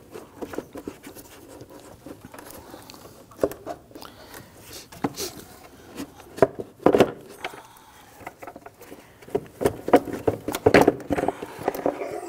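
Plastic air filter box and filter being handled and lifted out: scattered plastic clicks, knocks, rubs and scrapes, busiest in the second half.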